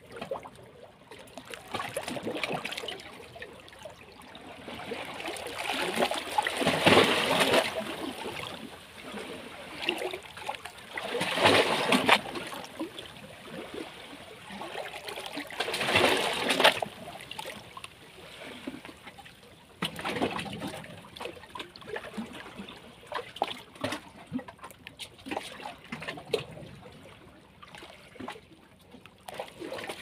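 Small waves on a calm sea lapping and splashing close by, with louder splashing surges every four or five seconds.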